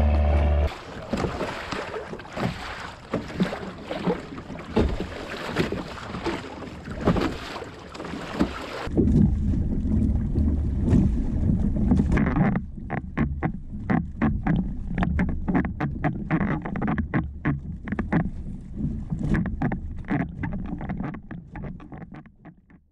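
Water splashing and slapping against the hull of a Hobie Tandem Adventure Island sailing kayak under way in waves, with wind buffeting the microphone. About nine seconds in the sound turns duller, with many sharp, irregular slaps, and it fades out at the end.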